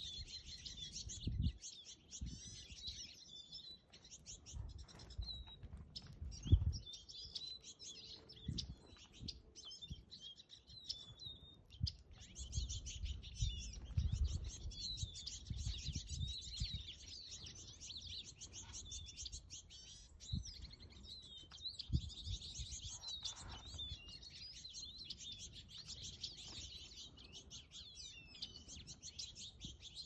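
A flock of small songbirds at a seed feeder chirping and twittering continuously, many rapid high calls overlapping. Occasional low thumps sound under them, the loudest about six and a half seconds in.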